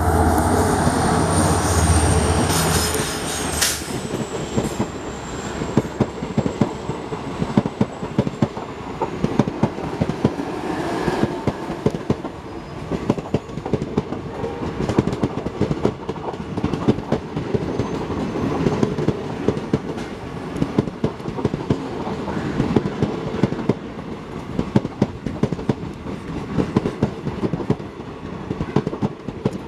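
An Indian Railways WDG4D diesel locomotive passing at speed, its engine loudest for the first few seconds, with a high thin whine that drops slightly in pitch about four seconds in and fades. Then the passenger coaches of a superfast express rush past with a rapid, continuous clickety-clack of wheels over the rail joints.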